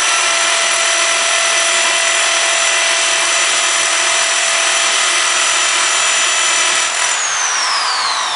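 Electric drill press with its bit grinding into a smartphone's glass screen, a steady, loud, high-pitched grinding. About seven seconds in the drill is switched off and its motor whine falls in pitch as it spins down.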